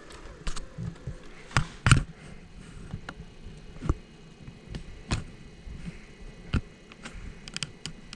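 Scattered sharp clicks and light knocks at irregular intervals over a faint steady background, the loudest about two seconds in.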